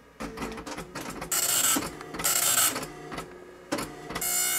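Panasonic KX-P1080i 9-pin dot matrix printer printing: three loud buzzing passes of the print head, each about half a second long, with lighter clicking and clatter between them.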